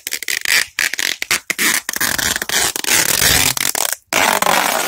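Loud rustling and rubbing close to the microphone, cut by many brief gaps, with a low rumble between about two and three and a half seconds in.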